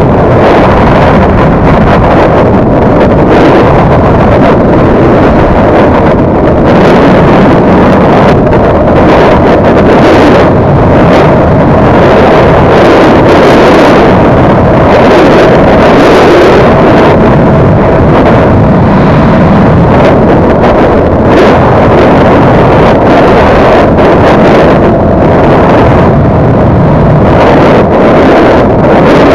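Heavy wind rush on the camera microphone from a motorcycle cruising at about 75 km/h, with the CFMoto 250NK's single-cylinder engine running at a steady speed underneath. The sound is loud and unbroken throughout.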